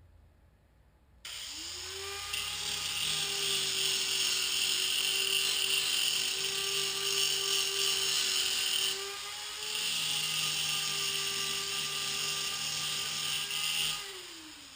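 Electric angle grinder spinning up with a steady whine, then grinding steel in two long passes with a short let-up between them. It spins down near the end.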